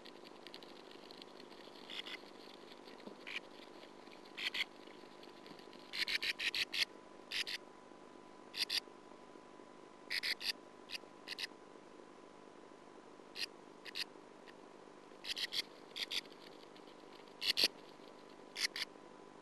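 Sand martins inside a nest tunnel making short, sharp scratchy sounds in quick clusters of two to five, repeated irregularly, over a faint steady hum.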